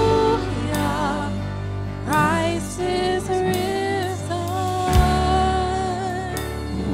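Live worship band playing a slow song: singers holding long notes, some with vibrato, over keyboard, guitars and drums, with one sharp drum hit about five seconds in.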